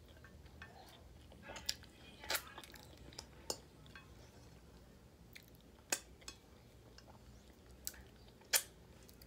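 Close-up eating sounds of a person eating with her fingers from a glass plate: quiet chewing broken by about eight sharp smacking clicks of mouth and lips, the loudest near the end as she licks her fingers.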